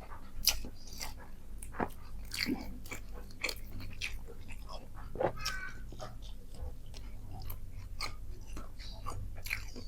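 Close-miked mouth sounds of a person chewing a mouthful of rice and food, with irregular wet crunches and bites throughout and a few sharper crunches.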